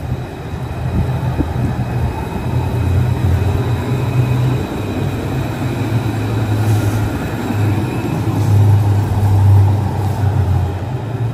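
Electric street tram passing close by on its rails: a steady low motor hum over rolling rumble, loudest about two-thirds of the way through as the cars go past.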